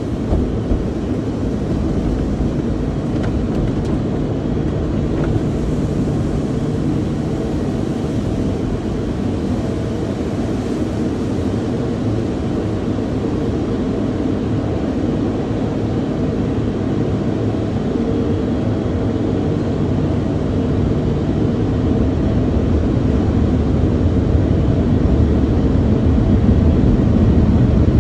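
Automatic tunnel car wash heard from inside the car: a steady low rushing of water sprays and wash machinery, getting louder near the end as the car nears the air-dryer blowers.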